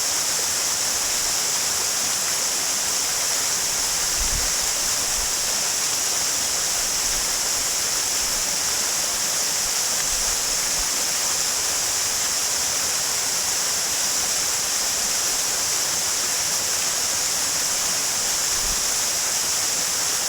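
Waterfall: a steady, even rush of falling water with a strong high hiss.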